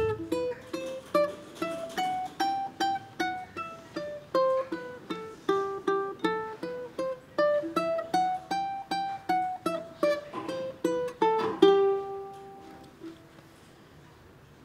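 Solo ukulele fingerpicked: a melody of single plucked notes, two or three a second, climbing and falling over a repeating lower note. About three-quarters of the way through a longer note is held and left to ring out and die away, leaving a short pause.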